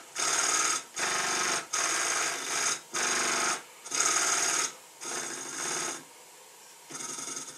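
Small twin-cylinder model steam engine running on compressed air, its exhaust hissing in surges about once a second with short dips between, then quieter for about a second near the end before picking up again. The engine is still stiff and is being run in with plenty of oil.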